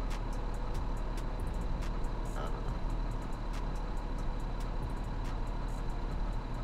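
Box truck engine idling, a steady low rumble heard inside the cab, with a faint steady high whine and a few scattered light clicks.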